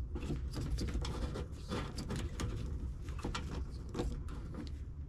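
Scattered small clicks and rustling of wiring-harness plugs being worked apart under a pickup truck's dashboard, over a low steady hum.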